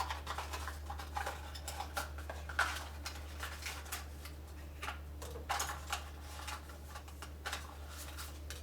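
Small speedcube accessories (tensioning tools and spring-compression pieces) being handled, with irregular light clicks, taps and rustles. A steady low hum runs underneath.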